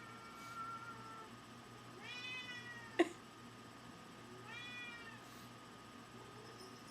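Domestic cat, an unneutered tom, meowing three times: a faint call at the start, then two longer meows that rise and fall in pitch, about two and about four and a half seconds in. A single sharp knock just after the second meow, about three seconds in, is the loudest sound.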